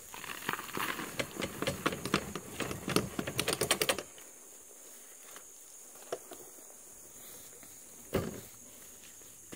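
Wheelbarrow clattering and rattling as it is wheeled up and tipped to dump a load of wood chip compost, a run of quick knocks and clicks for about four seconds that ends abruptly. A single thump follows near the end as the barrow is set down.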